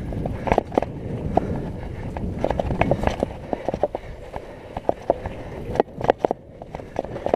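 Mountain bike riding over a wet dirt singletrack: a steady low rumble of tyres on the trail, with frequent sharp clattering knocks and rattles from the bike jolting over bumps.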